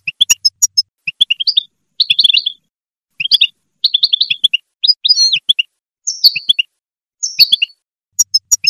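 European goldfinch singing: short bursts of rapid twittering notes with brief pauses between them, and a few longer slurred notes in the second half.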